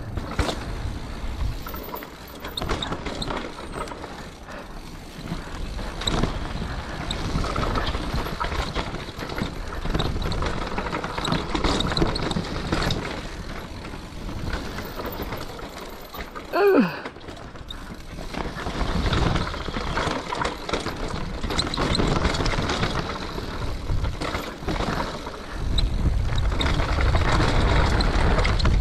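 Mountain bike rolling downhill on a dirt forest trail: tyre noise and the bike's frame and parts rattling over bumps, with one brief falling squeal about two-thirds of the way through. Near the end the low wind rumble on the microphone grows stronger as the bike speeds up onto open ground.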